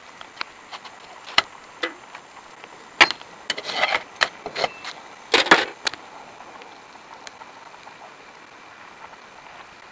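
Metal spatula clicking and scraping against a nonstick frying pan as a flatbread is lifted and flipped: a few sharp clicks, then two short bursts of knocking and scraping in the middle, and then it goes quiet.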